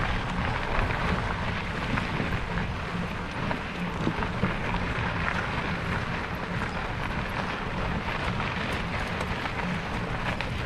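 Wind buffeting the microphone and rain falling, a steady rushing noise with scattered faint ticks.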